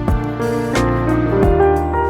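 Background music: held keyboard notes over a steady beat.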